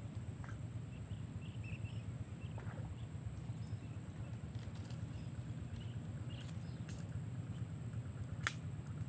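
Outdoor ambience: a steady low rumble like wind on the microphone, a continuous high thin tone, and scattered faint short chirps. A single sharp click sounds near the end.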